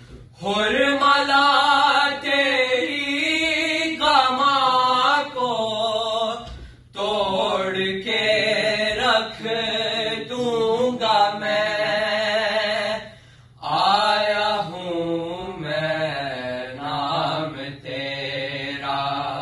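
Two male voices reciting an Urdu salaam, a Shia devotional elegy, unaccompanied, in long drawn-out sung phrases with wavering held notes and short breaks between lines.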